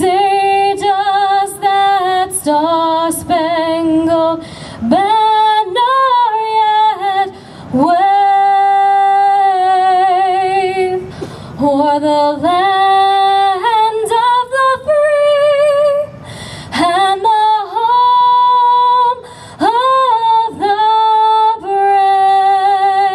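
A woman singing solo without accompaniment, in phrases with long held notes and vibrato.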